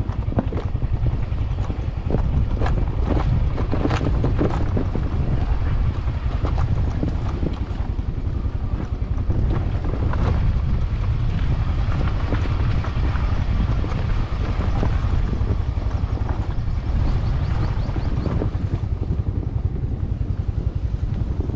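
Wind buffeting the microphone on a moving motorcycle, over a steady low rumble of engine and road noise, with a few scattered knocks.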